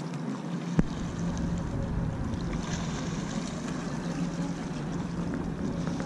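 Wind rumbling on the microphone over a steady low hum, with one sharp knock about a second in, just as the rumble starts.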